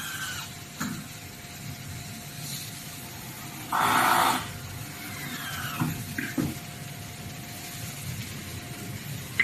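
Cordless drill driving a screw up through the table frame into the board, one short run of the motor under a second long about four seconds in. A faint steady hum and a few light clicks sound around it.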